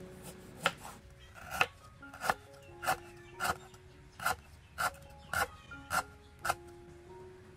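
Kitchen knife slicing through lime and galangal root on a wooden cutting board: a steady run of sharp chops, a little under two a second. Soft background music plays underneath.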